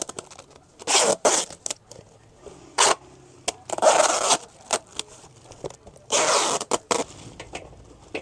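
Packing tape pulled off its roll in four short strips onto a small cardboard box, each pull under a second, with small clicks and cardboard crinkles in between.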